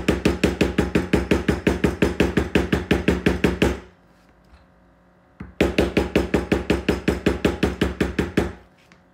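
Leather stamping tool being struck by a white poly mallet in quick, even taps, about six a second, pressing a pattern into a leather knife sheath on a cutting mat. Two runs of tapping with a pause of about a second and a half between them.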